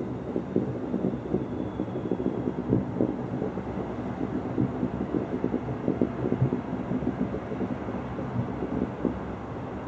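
Fireworks display: a dense, irregular run of dull bangs and rumbling booms, with no break between them.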